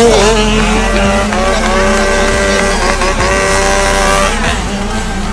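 Two-stroke 65cc motocross bike engines revving hard as riders race past. The pitch dips early on, holds a steady high note through the middle, then falls away about four seconds in as the throttle comes off.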